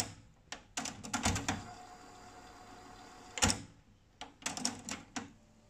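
Technics RS-TR252 cassette deck's transport mechanism clicking and clunking as its buttons are pressed: the tape stops with a click, a cluster of mechanical clunks follows, and the reels whir steadily for about two seconds while the tape winds. A single click comes about three and a half seconds in, then another run of clunks as the deck switches into forward playback.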